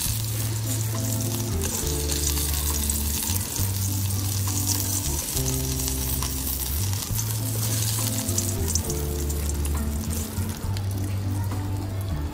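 Hot oil sizzling as baby potatoes and shallots fry in a kadhai, with a slotted spatula scraping through the pan as they are lifted out. Background music with deep held bass notes plays underneath.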